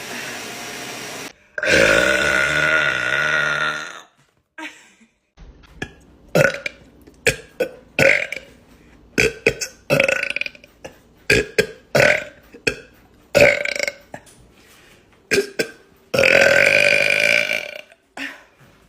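A woman belching: one long, wavering belch about a second and a half in, then a quick run of short belches, and another long belch near the end.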